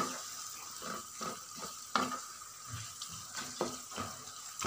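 Minced meat (keema) with onions frying and sizzling in oil in a non-stick pan while a spatula stirs it, with repeated short scrapes and light knocks of the spatula against the pan.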